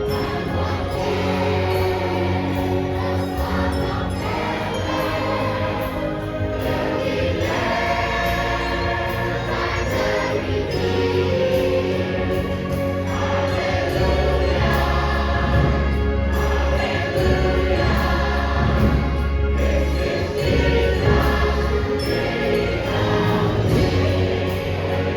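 Choral music: a choir singing over instrumental accompaniment, with long held low notes underneath.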